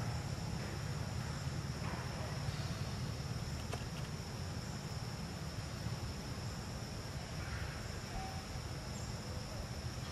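A steady, high-pitched insect drone over a low, steady rumble, with a faint click about four seconds in.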